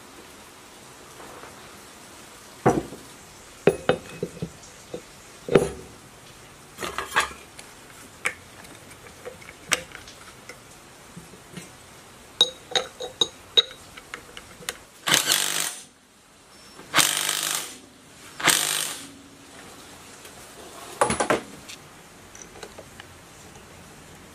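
Hand tools and metal engine parts clinking and knocking during the assembly of a small gasoline generator engine, with four harsher one-second bursts of noise in the second half.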